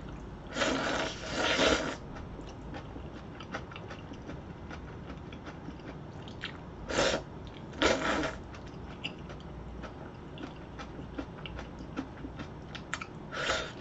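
Close-miked slurping and chewing of jjajangmyeon (black-bean sauce noodles). There are several short noisy slurps: two near the start, two in the middle and one near the end. Soft wet mouth clicks and smacks fall between them.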